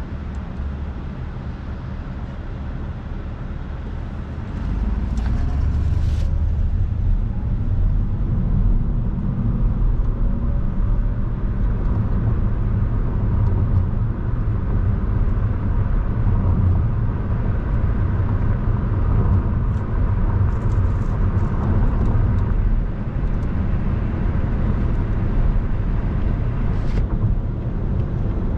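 Road and tyre noise inside a moving car's cabin: a steady low rumble that grows louder about four and a half seconds in as the car gathers speed. A few faint clicks come and go.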